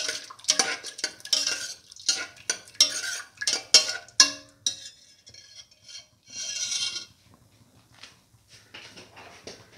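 A perforated stainless-steel spoon stirring a watery lentil mixture in a steel pressure cooker pot, scraping and clinking against the metal many times in quick succession. After about four seconds the stirring slows to a single longer scrape and a few faint taps.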